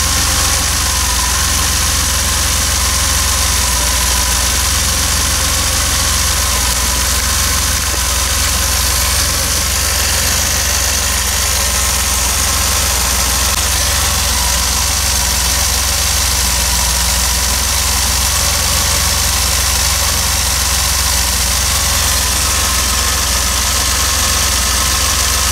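DeLorean DMC-12's PRV V6 engine idling steadily, heard close up in the engine bay. It is running on a newly fitted Bosch ignition coil and sounds a little different to the owner, as if it is running a little better.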